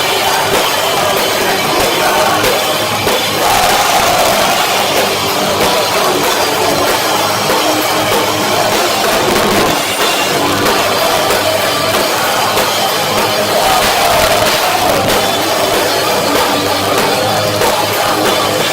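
Live heavy rock band playing loud, with drums and distorted guitars, recorded through a cheap phone microphone that makes the sound harsh and overloaded.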